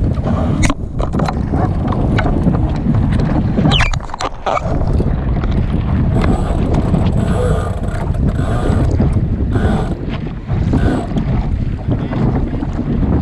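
Heavy wind noise buffeting the microphone aboard a Sunfish sailing dinghy, with a few sharp clicks or knocks, one just under a second in and one a little before the middle.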